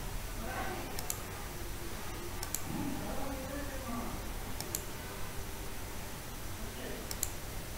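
Computer mouse button clicked four times, a second or two apart, each click a quick double tick of press and release. Faint voices murmur underneath.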